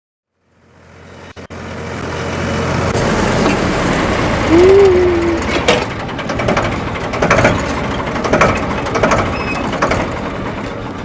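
Ford 3600 tractor engine running, fading in over the first two seconds to a steady low drone. Sharp knocks come at uneven intervals, and a short tone that rises then dips is the loudest moment, near the middle.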